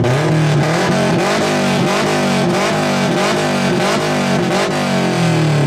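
2005 Subaru Impreza's flat-four boxer engine revved hard through its exhaust, held at high revs with the pitch bobbing up and down over and over, then falling back as the revs drop near the end.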